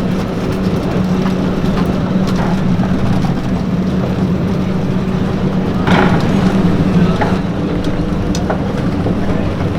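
A steady engine hum holding one pitch throughout, over a busy background, with a brief louder rush of noise about six seconds in.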